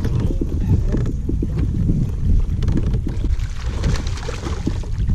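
Wind buffeting the microphone in a steady low rumble, while a hooked fish thrashes and splashes at the water's surface for a second or two, starting a little past halfway.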